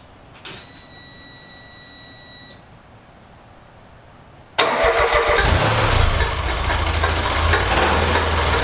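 A dune buggy's engine being started. First comes a faint steady high whine lasting about two seconds, then after a short pause the engine catches suddenly about halfway through and keeps running, settling into a steady idle. It is running on all cylinders with the ignition timing now right.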